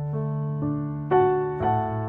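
Background piano music: single notes played over a held low note, the notes striking louder from about a second in.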